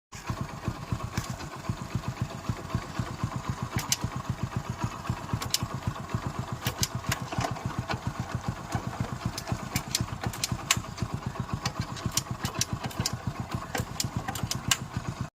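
Hero Honda Splendor Plus single-cylinder engine idling with a steady, quick, even beat and scattered sharp clicks.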